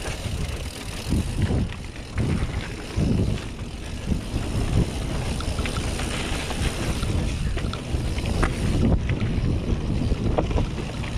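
Mountain bike ridden fast down a rocky trail: wind buffeting the microphone over a steady rumble of tyres on rock and concrete, with sharp rattles and knocks from the bike over bumps.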